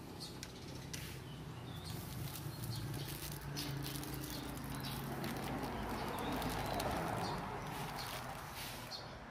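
Thin plastic packaging crinkling and rustling as hands take out and handle the wrapped spoon and noodle packet. The crinkling is busiest in the second half.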